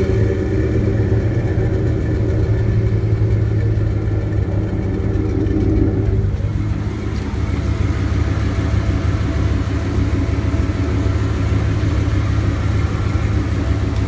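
1997 Jeep Grand Cherokee ZJ's 5.2-litre V8 idling steadily, heard at the tailpipe through its newly replaced catalytic converter and sealed, clamped exhaust joints.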